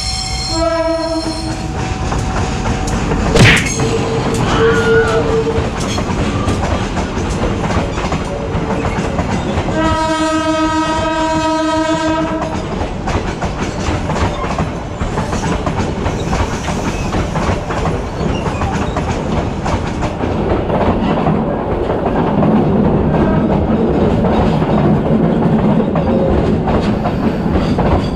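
A train going by: its locomotive horn sounds briefly at the start and again for about three seconds around ten seconds in. Underneath is the steady rumble and clickety-clack of wheels over rail joints, with a sharp clank a few seconds in.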